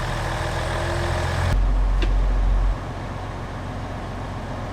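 Diesel truck engine idling with a steady low rumble. Its sound changes abruptly about a second and a half in and is quieter from a little past halfway.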